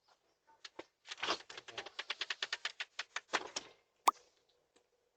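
Doorknob being jiggled, its latch rattling in a quick run of clicks for about two and a half seconds, then one sharp click.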